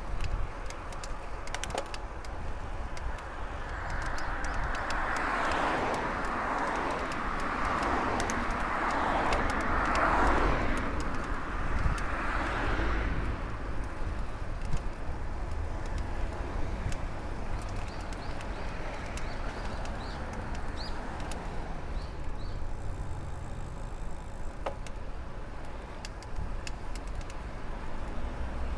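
Wind buffeting the microphone during a road-bike ride, with a motor vehicle passing: its tyre and engine noise swells and fades over several seconds. A few faint bird chirps come near the end.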